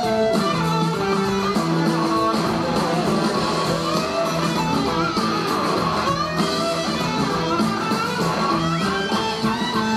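Live blues-rock band playing an instrumental passage: two electric guitars trading lead lines, with notes that bend and glide in pitch, over drums and bass.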